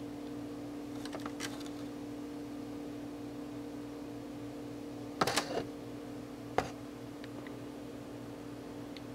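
Steady low electrical hum, with a few faint clicks about a second in, a short cluster of louder clicks about five seconds in and one sharp click shortly after.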